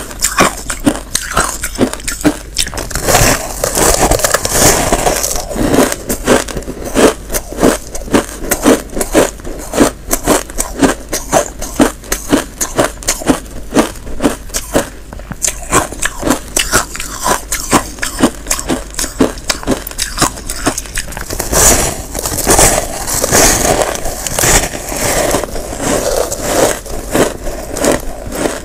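Close-miked biting and chewing of packed chunks of frozen shaved ice: a continuous run of crisp, squeaky crunches, several a second.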